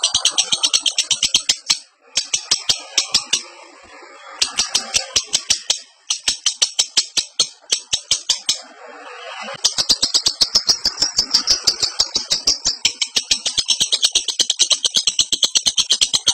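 Lovebird in breeding condition singing its rapid chattering trill ('ngekek'): fast, evenly repeated shrill notes in several bouts with short breaks, running unbroken from about ten seconds in.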